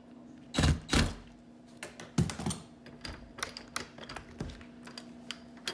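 Screwdriver tightening the mounting screws of a door lockset: a run of small irregular metal clicks and ticks, with a couple of louder knocks about a second in.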